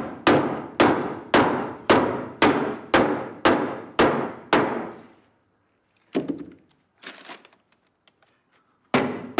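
Hammer blows struck about twice a second, each ringing briefly through the piano, as a glued-and-doweled pin block is knocked loose from a 1927 Steinway piano. The blows stop about halfway through, one more knock follows a second or so later, and the hammering resumes near the end.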